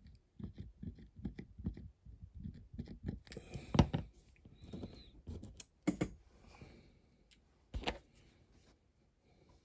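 Close-up handling noises from hands working on a die-cast toy car body: a run of small taps, rubs and scrapes as fingers press plating onto it and a plastic glue bottle is used, with a few louder knocks, the last about eight seconds in, and quieter toward the end.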